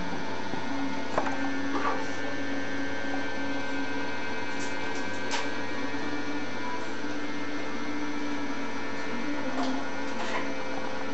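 A steady electrical or mechanical hum of several held tones, with a few faint clicks.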